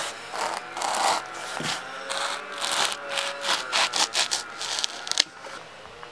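A knife sawing through a foam pool noodle. It makes a run of short rasping strokes that come faster toward the end, then stops with a sharp click about five seconds in.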